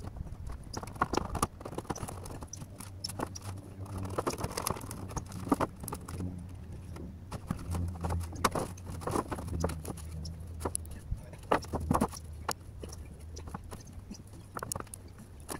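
Clay roof tiles knocking and clinking together and old rusted sheet-metal valley flashing rattling and scraping as they are lifted and pulled out by hand: irregular knocks and clatters over a low hum.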